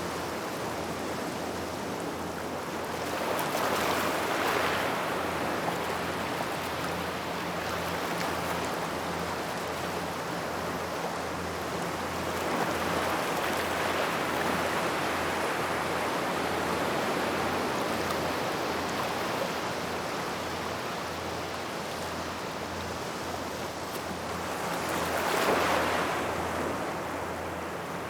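Sea waves washing in over a gravel shore by rocks, swelling about four seconds in, more gently midway, and loudest near the end.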